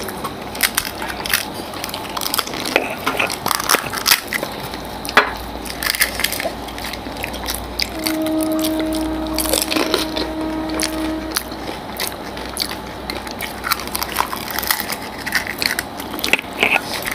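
Crisp fried fuchka (pani puri) shells being cracked open with the fingers and crunched while eating: irregular sharp crackles and clicks. About eight seconds in, a steady tone holds for about three seconds.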